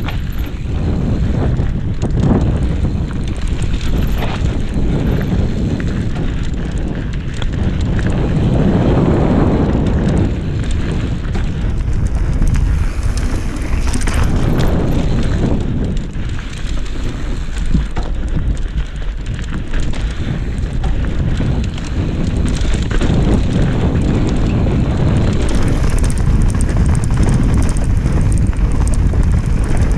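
Cube Stereo 150 mountain bike's tyres rolling fast over dry dirt and loose rock on a descent, with frequent small knocks and rattles from the bike, under heavy wind buffeting on the action camera's microphone that swells and eases with speed.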